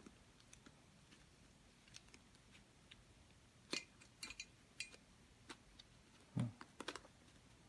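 Plastic Ivy cube puzzle being handled and turned by hand: faint, scattered clicks and clacks of its pieces, with a soft thump about six and a half seconds in.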